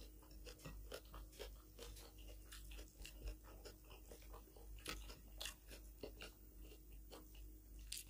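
Faint sounds of eating by hand: fingers mixing rice and mutton curry on plates, and chewing, heard as irregular small clicks and smacks.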